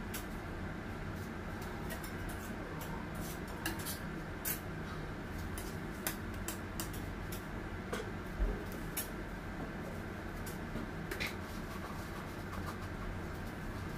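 Scattered light clicks and taps from handling the cake and its silver cake board on the counter, over a steady low hum; one duller knock comes a little past the middle.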